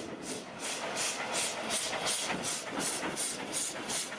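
Steam-locomotive chuffing: evenly spaced hissing puffs, about four a second, like a classic steam train under way.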